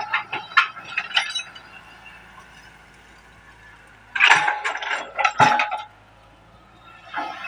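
Excavator at work: two bursts of sharp clinking and clattering, a short one right at the start and a louder, denser one a little past the middle, over a faint steady engine hum.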